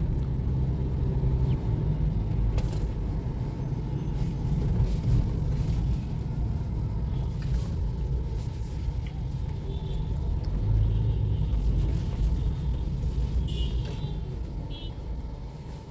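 Low, steady road and drivetrain rumble inside the cabin of a moving Toyota Aqua hybrid. The rumble eases toward the end as the car slows in traffic.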